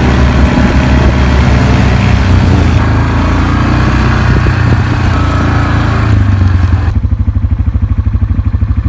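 Off-road vehicle engine running under way along a gravel trail, with tyre and wind noise. About seven seconds in the sound cuts suddenly to a steady, even low pulse of an engine idling.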